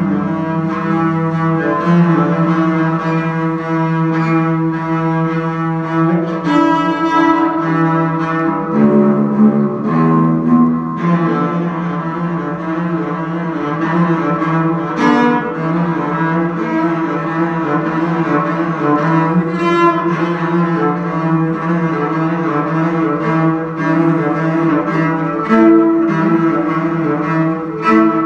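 A cello played with the bow: slow, long held notes that change pitch every few seconds.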